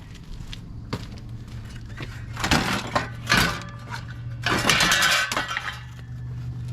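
Clattering and scraping as front-end parts are worked loose and pulled off a car, in a few short bursts, over a steady low hum.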